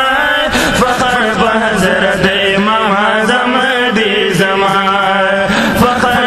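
Male voice chanting a Pashto manqabat (devotional praise poem) without instruments: a drawn-out, wordless melodic line that bends up and down over a steady low drone.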